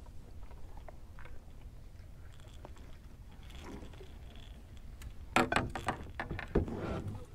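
Clattering and scraping as a landed blue catfish is handled in the net and lip-grip on a boat. A loud burst of knocks and thuds comes about five and a half seconds in, and another just before seven seconds.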